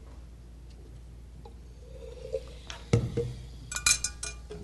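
Laboratory glassware being handled: a single knock about three seconds in, then a quick run of light glass clinks with a brief ring. This is the glass delivery tube and rubber stopper being fitted into the Erlenmeyer flask.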